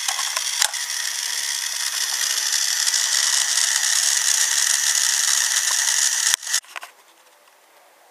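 Tomy Mighty Mac battery toy train's small motor and plastic gearbox whirring steadily, with a few clicks near the start. The whirring cuts off suddenly about six seconds in.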